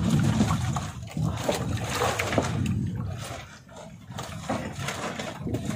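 Sea water sloshing and splashing against a small wooden outrigger boat, with irregular knocks and rustling as a fisherman handles line and fish on the boat's planks.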